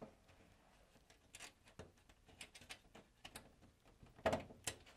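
Small metallic clicks and scrapes of a conduit connector being fitted into a knockout in a steel breaker panel and its locknut worked on by hand, with two louder knocks about four seconds in.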